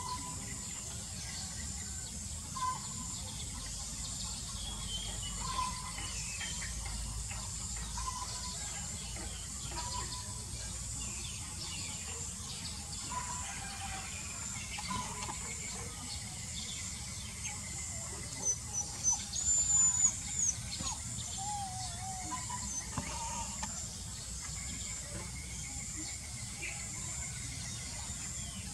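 Birds chirping and calling now and then over steady outdoor background noise with a thin high-pitched hiss. A louder run of chirps comes about two-thirds of the way through.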